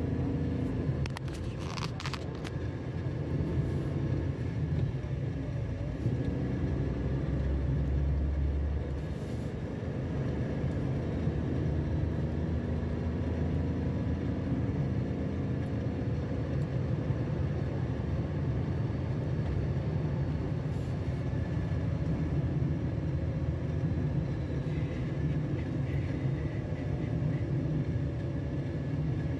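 Steady low rumble, with a short cluster of clicks about two seconds in.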